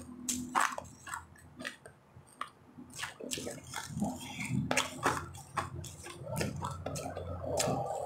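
Close-up mouth sounds of someone eating refrozen powdery ice: irregular sharp crunches as the ice is bitten and chewed, with wet, squishy mouth sounds between them.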